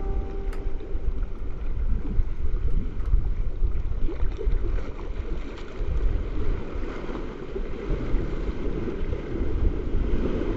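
Water rushing along the hull of a Tartan 37 sailboat under sail, with wind buffeting the microphone: a steady, low rushing noise. The last note of a ukulele fades out in the first half second.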